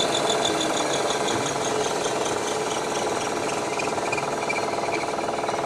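Parker Majestic ID-OD grinder running, with its table mechanism in motion: a steady mechanical whir with a fast, fine rattle and faint pulsing high whines.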